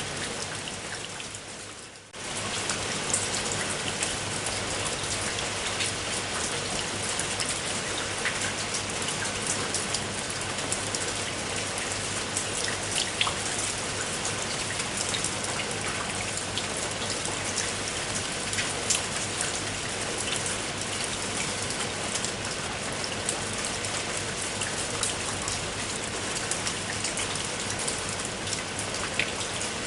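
Steady rain falling on a surface, individual drops heard as many small clicks over an even hiss. About two seconds in it briefly fades down and comes straight back up.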